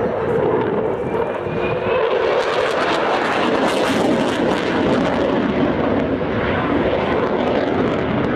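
Eurofighter Typhoon's twin Eurojet EJ200 turbofans, a loud continuous jet noise that turns sharper and hissier about two seconds in and dulls again after about five seconds.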